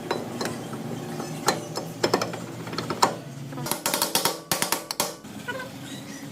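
Metal hand tools clicking and ratcheting on a rear drum brake, with a quick run of clicks about two thirds of the way through.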